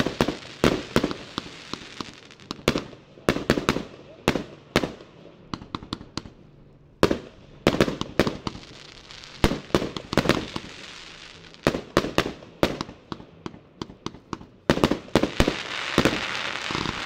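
A 156-shot consumer fireworks cake of 0.8 to 1.2 inch tubes firing: rapid volleys of launch thumps and aerial bursts with short lulls between them. The shells break with a hissing crackle, which is thickest near the end as a golden crackling salvo goes off.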